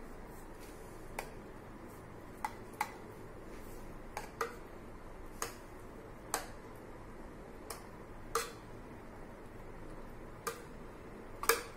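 A metal spoon clinking and tapping against a metal baking tin while spreading sauce over bread layers: about a dozen short, light clicks at irregular intervals of roughly a second.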